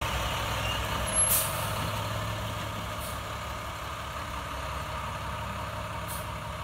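A school bus's diesel engine running steadily as the bus creeps forward at low speed, with a short, loud hiss of air from its air brakes about a second in and fainter hisses later.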